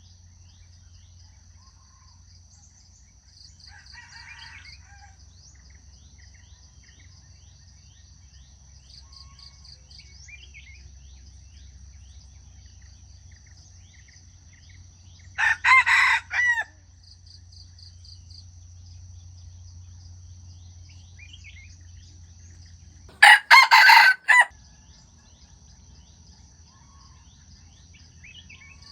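Jungle fowl rooster crowing twice, about eight seconds apart, each crow short and choppy. A steady high-pitched drone and faint bird chirps run underneath.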